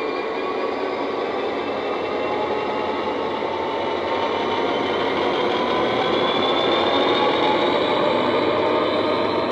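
DCC sound decoder in an OO gauge Class 66 model locomotive playing a Class 66 diesel engine sound file through a small EM2 speaker, the engine running steadily under power and growing louder as the model comes closer. A faint whine rises a little in pitch about six seconds in.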